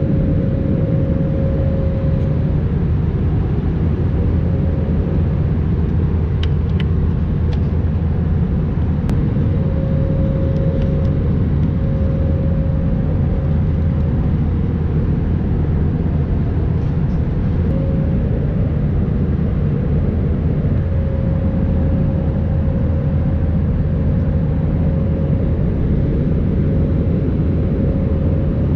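Airbus A320-200 cabin noise in cruise: a steady, loud rumble of engine and airflow noise, with a faint hum that fades in and out.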